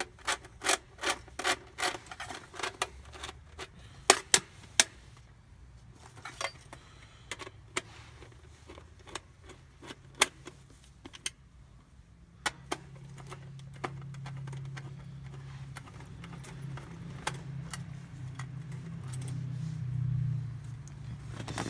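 Sharp metallic clicks and clinks of a screwdriver working screws on the sheet-metal mounting plate of an electric heat strip, with the element's coils rattling: quick and regular for the first five seconds, then scattered. A low steady hum builds up in the second half.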